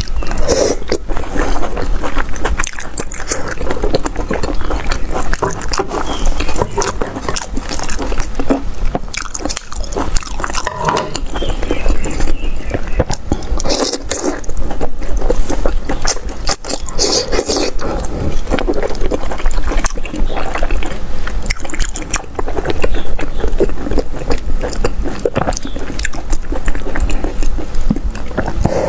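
Close-miked eating: wet chewing, sucking and slurping of soft, chewy pieces of offal from a spicy broth, with many small mouth clicks and smacks.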